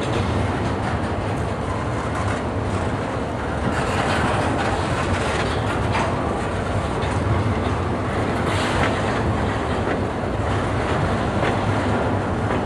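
Double-stack intermodal well cars rolling past: a steady rumble of steel wheels on the rails, with sharp clacks every second or two.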